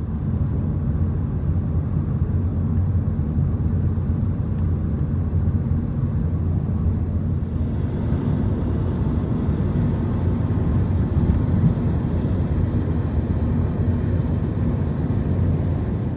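Car driving, with steady road and engine rumble heard from inside the cabin.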